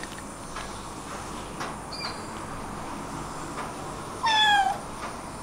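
A kitten meows once about four seconds in, a short high call that slides slightly down in pitch. Faint small ticks come and go under it.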